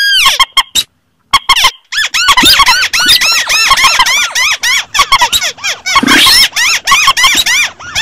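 Looped lure recording mixing calls of swamphen (mandar), crake (tikusan) and rail (sintar): rapid, overlapping squeaky notes that rise and fall. The calls are choppy with a short break about a second in, then run densely.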